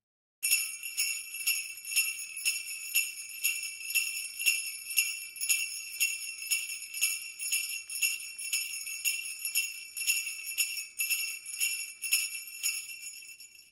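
Jingle bells shaken in a steady rhythm, about two shakes a second, starting about half a second in and fading out near the end.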